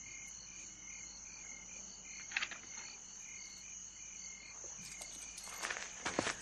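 A night-time chorus of chirping insects, with a steady high hiss and a regular pulsed chirp. A single sharp click comes about two and a half seconds in, and light metal clinks of hand chains near the end as the chained man moves his arms to drink.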